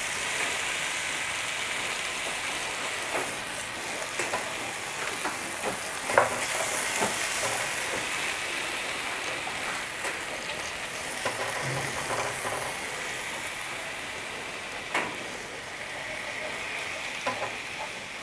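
Milk sizzling in a hot frying pan as it is poured in bit by bit and stirred with a silicone spatula: a steady hiss with scattered light taps and scrapes of the spatula against the pan.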